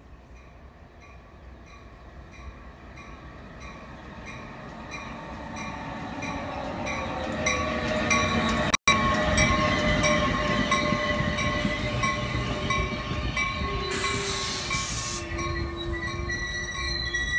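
NJ Transit electric push-pull commuter train pulling into the station, its locomotive bell ringing steadily about twice a second as it grows louder. The rumble of the passing cars builds, with steady high squealing tones as it brakes, and a short burst of air hiss about fourteen seconds in.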